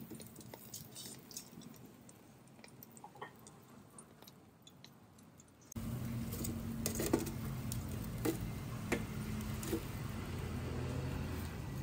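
Light clicks and clinks of kitchen utensils and dishes being handled. About halfway through, a steady machine hum starts, with more sharp knocks and clinks over it.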